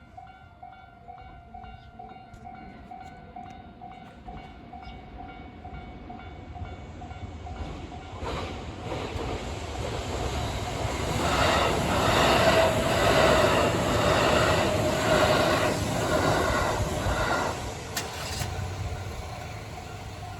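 Japanese level-crossing warning bell ringing a steady repeating electronic clang, then a Kintetsu Ise-Shima Liner limited-express train approaching from about eight seconds in. The train passes loudly with a rhythmic clatter of wheels over the rails and crossing, then fades away near the end.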